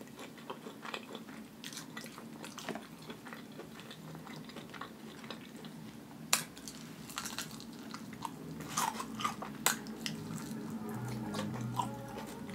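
Chewing and biting of fried chicken wings: crunchy bites of the breading with scattered crackles, two sharper crunches about six and ten seconds in.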